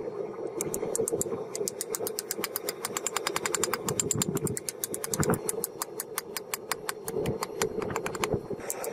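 Ball-peen hammer striking a red-hot steel blade on the anvil face of a bench vise: quick, even metallic strikes, about five a second, with a steady hum underneath.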